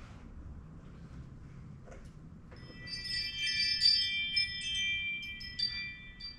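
Chime-like ringing: several clear high tones struck over and over, starting about two and a half seconds in and dying away near the end.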